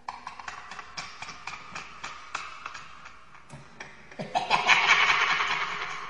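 Tap water running into a metal bowl in a steel sink while a small parrot bathes under it, splashing and fluttering its wings in quick irregular bursts. A little after four seconds in, the flapping and splashing get louder for about a second.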